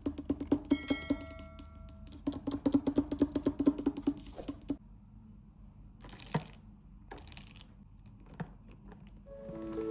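Felt-tip marker stroked rapidly back and forth on paper, about five strokes a second, stopping about halfway through. Two short scratchy strokes follow.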